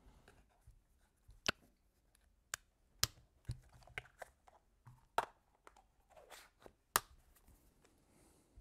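Scattered sharp clicks and knocks, about half a dozen, with light rustling between them, as the parts of a Dye DSR paintball marker are handled and fitted together by hand.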